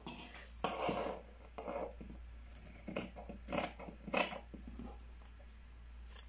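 Several short rustles of a paper sewing pattern being handled and turned, about five in all, fairly quiet.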